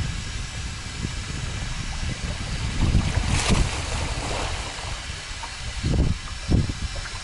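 Wind buffeting the microphone over river water lapping, with a swimmer splashing at the surface about three seconds in and two short low thumps near the end.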